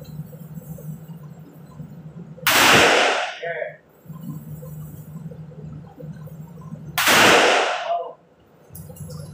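Two handgun shots about four and a half seconds apart, each ringing on in the reverberation of an indoor firing range. A steady low hum runs between them.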